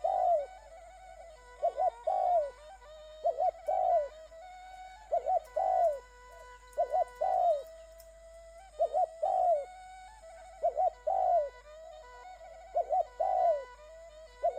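A bird cooing: a repeated phrase of two short notes followed by a longer falling note, about every two seconds, over a faint steady hum.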